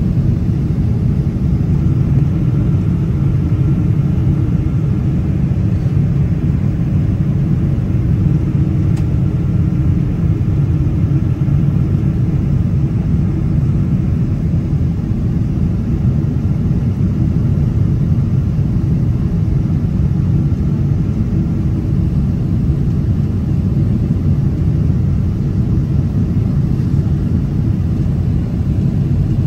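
Steady low rumble inside the cabin of a Boeing 777-200ER on approach to land, from its Rolls-Royce Trent 892 engines and the airflow over the wing, with faint steady tones above it.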